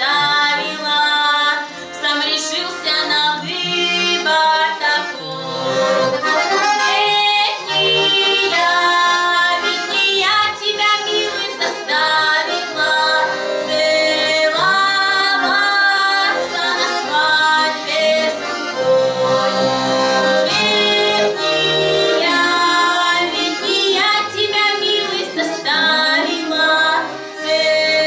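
A woman singing a folk song to an instrumental accompaniment.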